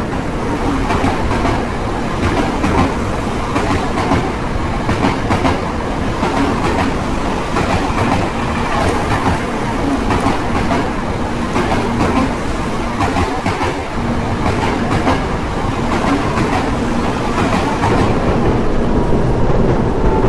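Train running by on the rails: a continuous loud rumble with the clickety-clack of wheels passing over rail joints, heard as many irregular sharp clicks.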